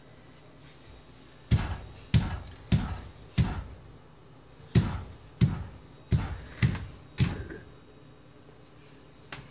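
A toddler's feet thumping on a tile floor as she dances: about nine sharp thumps, spaced roughly half a second to a second apart, in two runs with a short pause between.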